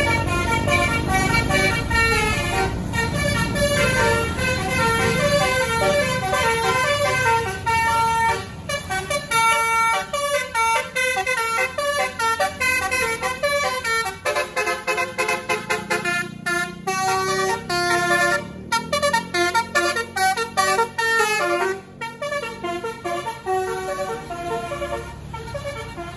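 A bus's basuri multi-tone air horn (an Indonesian 'telolet' horn) playing melodic runs of quick stepped notes, with short breaks between phrases. A low rumble sits underneath at times.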